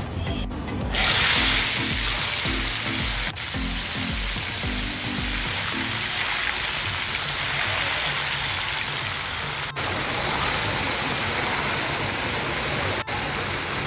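Diced raw potatoes frying in a shallow pool of hot oil on a large flat iron griddle (tawa): a loud, steady sizzle that comes in suddenly about a second in.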